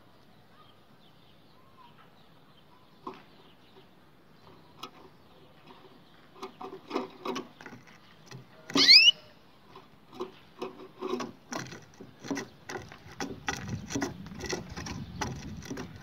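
Canary in a wooden cage: faint at first, then from about six seconds in a run of quick light taps and knocks as the bird moves about on the wooden cage floor, broken by one loud rising chirp about nine seconds in.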